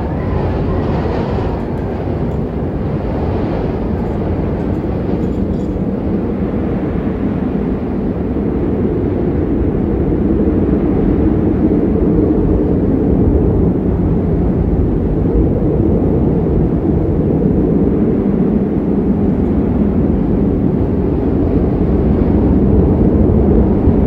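Strong wind blowing across the microphone, a steady low rumble that grows a little louder about a third of the way in.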